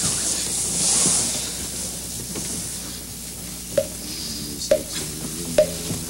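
A wooden fish (mokugyo) struck at a steady beat, about one knock a second, starting some four seconds in, with sutra chanting held on a steady pitch beginning under it. Before the knocks there is only a hiss.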